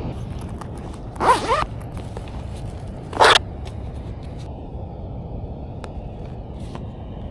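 A chest-pack zipper pulled open in two short strokes about two seconds apart. A few faint clicks follow as a plastic fly box is opened.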